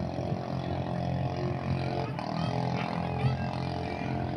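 Small boat engine running steadily at speed on a motorised outrigger fishing boat, on a test run of its repaired propeller. Faint voices or calls are heard over it.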